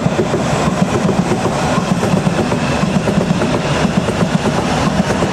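Electric multiple-unit trains running through a station: a loud, steady rumble of wheels on rails.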